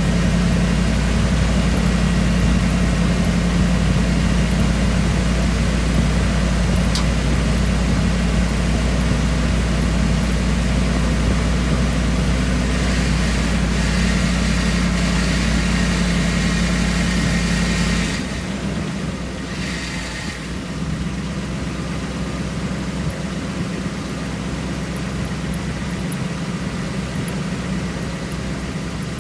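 2003 Ford F-150's engine idling steadily. About eighteen seconds in the sound drops off suddenly and a quieter low hum carries on.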